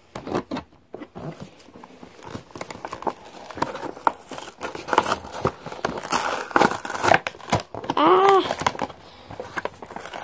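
Clear plastic toy packaging crinkling and crackling as it is handled and pulled open, with many small clicks and rustles. A short squeak rises and falls about eight seconds in.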